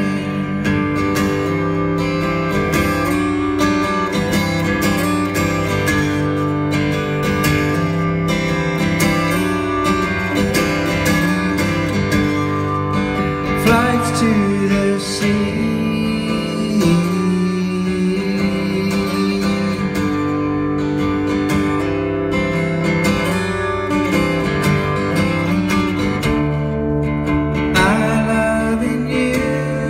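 Live solo acoustic guitar, strummed and picked, with a man singing over it into a microphone.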